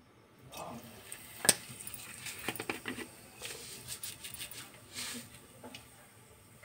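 Whole seeds dropped into a small pool of hot oil in a steel pan start sizzling about half a second in, with a steady hiss and irregular crackles and pops. A sharp tap comes about a second and a half in.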